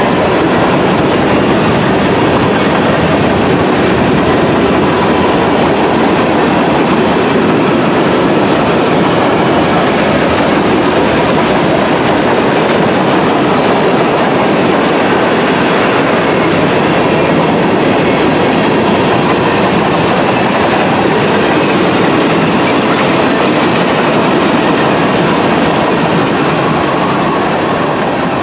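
Freight cars of a mixed freight train rolling past close by: the steady noise of steel wheels running on the rails, easing slightly near the end.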